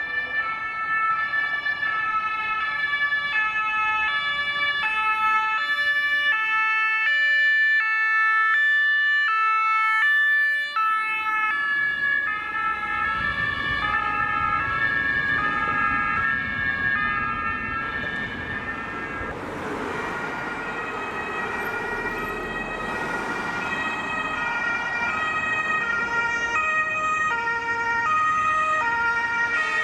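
German fire engine two-tone sirens (Martinshorn) sounding, their high and low notes alternating several times, with more than one horn overlapping out of step. From about halfway, vehicle engine and road noise rise under the sirens as the fire engines drive past.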